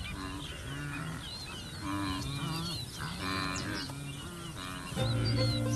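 Wildebeest calling: a run of short calls, one every half second or so, with small birds chirping above them. Music comes in near the end.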